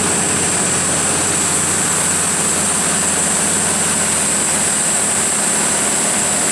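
Cummins KTA19-G4 turbocharged inline-six diesel engine of a 500 kW generator set running steadily at its 1800 rpm governed speed, a loud even drone with a steady high-pitched hiss over it.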